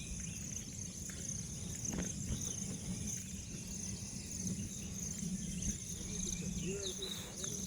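Steady high-pitched chorus of insects such as crickets, with faint short chirps over a low rumble.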